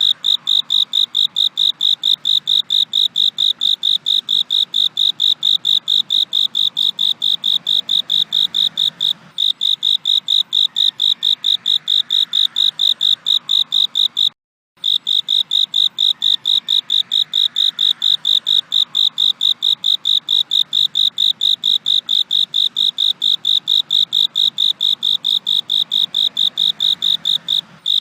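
Cricket chirping in a steady, rapid rhythm of evenly spaced high-pitched pulses. There is a brief break about halfway through.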